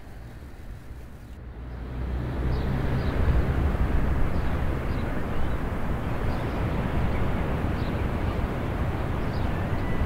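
Steady outdoor rumble and rush of noise, heaviest in the low end, swelling up about two seconds in and then holding level, with faint short high chirps about once a second.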